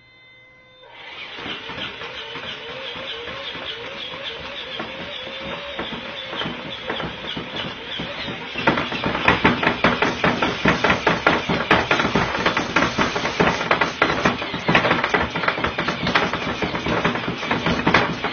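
A motorized baby-burping machine whirring into motion after its Burp Baby button is pressed. About halfway through it breaks into loud, rapid, repeated knocking, like fast mechanical patting.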